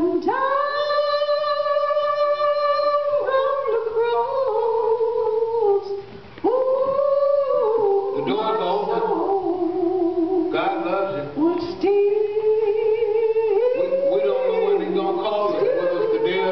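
A woman singing in a strong, full voice, holding one high note for about three seconds at the start, then moving through sliding, rising and falling phrases with a few short breaks.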